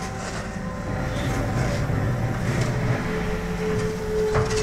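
Diesel engine of a Hitachi ZX125W wheeled excavator running, getting louder about a second in, with a steady higher whine joining past the middle.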